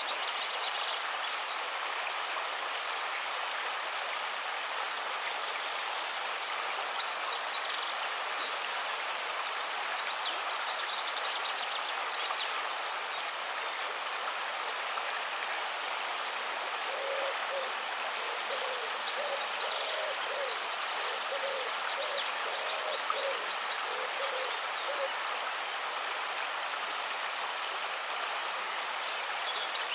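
River water running steadily, with small birds chirping high over it. From a little past halfway, a low call repeats a dozen or so times over several seconds.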